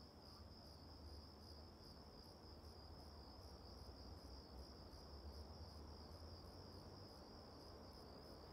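Near silence, with a faint, steady, high-pitched chirring of crickets over a low room hum.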